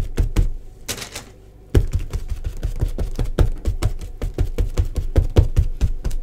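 Quick, repeated dabbing of a wad of kitchen towel loaded with acrylic paint onto a painted sheet on a tabletop: a run of soft thudding taps, several a second, with a short pause about a second in.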